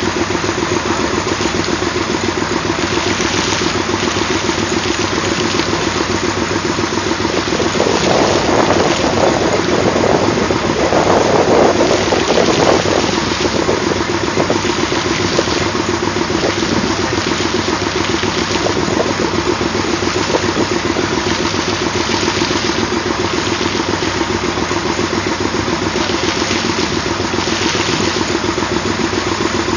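Old Westinghouse air-brake compressor running steadily with a fast, even beat while being used to clean out a water well. It grows louder and rougher for a few seconds around the middle.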